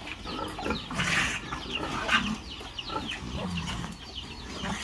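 Chickens clucking and peeping over and over in quick short chirps, with a couple of low grunts from the pigs in the pen.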